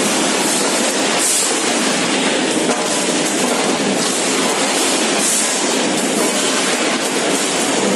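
Automatic chicken-leg packing machine running, its inclined modular plastic belt conveyor carrying raw chicken legs upward: a steady, even mechanical noise with no pauses.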